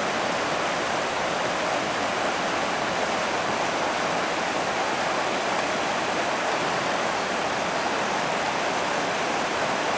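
A stream's water running steadily, an even rushing without breaks.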